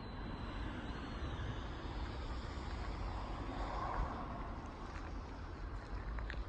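Distant road traffic: a steady low rumble and hiss that swells a little around the middle. The chime melody is not playing.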